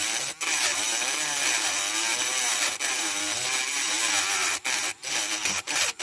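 Battery-powered pencil-style rotary tool grinding down the rivet of a diecast model car. Its pitch wavers as the bit bears on the metal, and it drops out briefly several times near the end.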